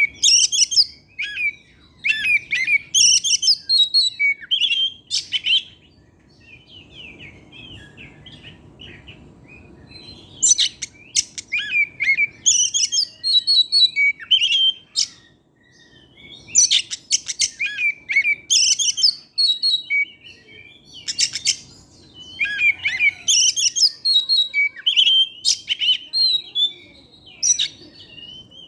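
An oriental magpie-robin (kacer) in full song: loud, varied whistled phrases delivered in bursts, with a softer, quieter passage of song about a quarter of the way through and brief pauses between bursts.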